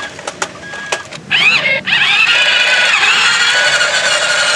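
Electric motors of a Toy State CAT remote-control toy excavator whining as it drives. A few light clicks come first; about a second in, a short whine rises in pitch, then from about two seconds on a steady high whine.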